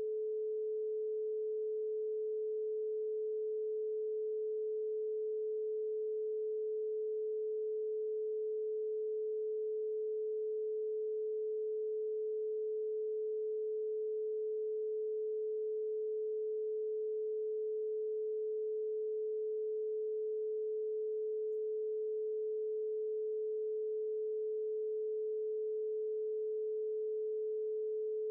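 A single steady electronic sine tone, pitched a little above 400 Hz.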